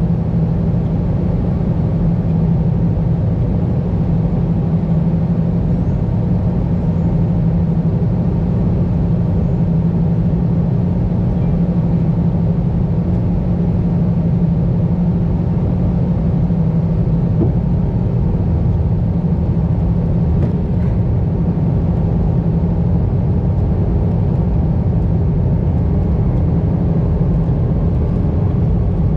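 Airbus A320 cabin noise in flight: the steady low drone of the engines and rushing air, with a strong low hum and a few fainter steady tones above it; the hum shifts slightly about three-quarters of the way through.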